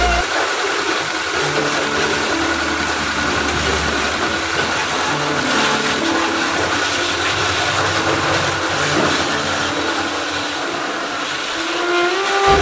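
Pressure washer running, its high-pressure water jet hissing steadily against a motorcycle, with the washer's motor humming underneath.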